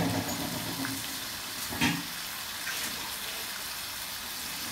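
Chicken pieces frying in hot cooking oil in a karahi, a steady sizzle with one louder pop about two seconds in.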